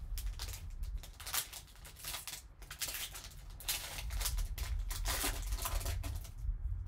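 A trading card in a clear plastic sleeve being handled and slid into a rigid plastic holder by gloved hands, giving a series of short plastic rustling and scraping sounds, over a low steady hum.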